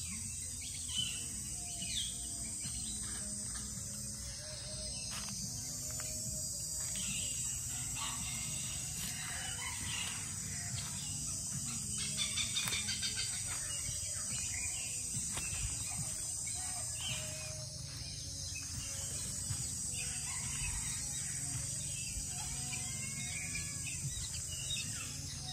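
Birds in aviaries chirping and calling, short calls on and off throughout, over a steady high insect drone and a low rumble.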